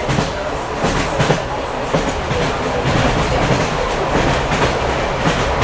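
Wheels of an old passenger railway carriage clacking over rail joints, over the steady rumble of the train running, heard from inside the carriage.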